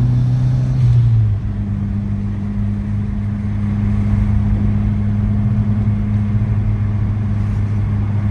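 Turbocharged Honda Civic's four-cylinder engine running on a drive. The engine note drops about a second in, as if off the throttle or into a shift, then holds steady.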